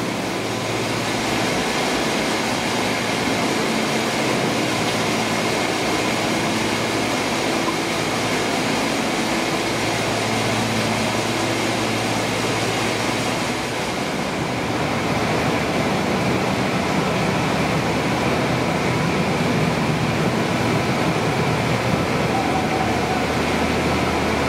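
Jute spinning frames running on a mill floor: a loud, steady, dense mechanical din of many spindles and flyers turning. The tone shifts abruptly about fourteen seconds in.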